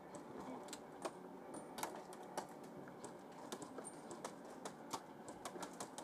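Faint, scattered sharp clicks and ticks of airsoft fire, coming irregularly a few times a second.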